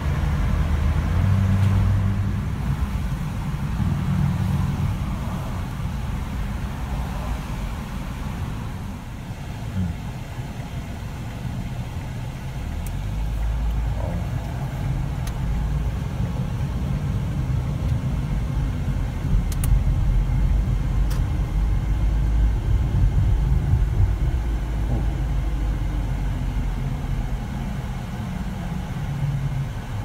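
Car road and engine noise heard from inside the cabin while driving: a steady low rumble that rises and falls with the car's speed.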